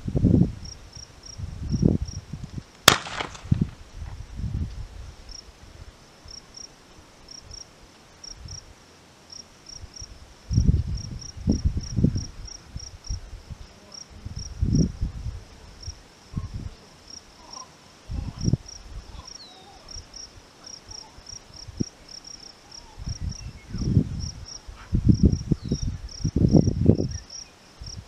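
Insects chirping in a steady, high, pulsing trill, with wind buffeting the microphone in repeated low gusts. A single distant shotgun shot cracks about three seconds in.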